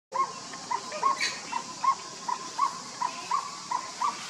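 A steady series of short chirping animal calls, about three a second, each note briefly rising and falling in pitch, with one brief higher squeak about a second in.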